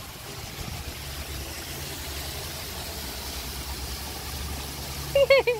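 A steady low mechanical hum. A short voice sound about five seconds in is the loudest moment.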